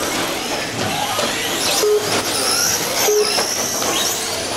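Electric 1/10-scale short-course RC trucks racing on a carpet track: motors whining, pitch rising and falling with the throttle, over steady tyre noise. Two sharp knocks come about two and three seconds in.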